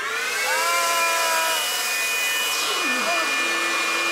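Dyson DC05 vacuum cleaner running, its motor spinning up to a steady high whine over rushing air just after the start, then holding.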